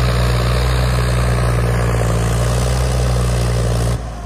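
Swaraj tractor's diesel engine running hard and steady under heavy load as it strains to pull a loaded four-wheeled sugarcane trolley that is stuck. It cuts off abruptly near the end, leaving a much quieter engine sound.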